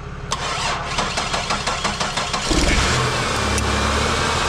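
2003 Chevrolet Monte Carlo's V6 cranking over on a jump pack for about two seconds, then catching about two and a half seconds in and settling into a steady idle: the jump start has worked.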